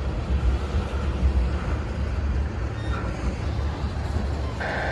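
Tank cars of a Norfolk Southern mixed freight train rolling past: a steady low rumble of steel wheels on the rails. A high squeal starts near the end.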